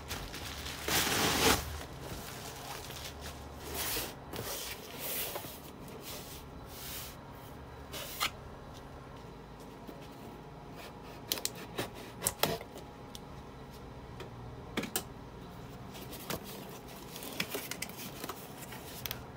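Unpacking sounds: a plastic mailer bag crinkling loudly about a second in, then scattered clicks, snips and scrapes as scissors cut the packing tape on a cardboard box and its flaps are pulled open.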